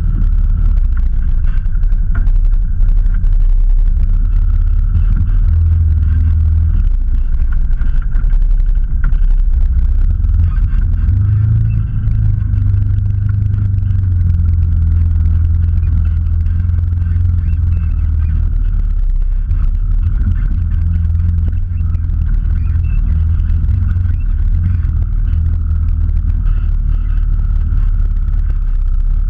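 Off-road vehicle engine running at low revs while the vehicle crawls over rough forest ground, a steady low drone whose pitch shifts a little about a third of the way in, with a faint steady whine above it.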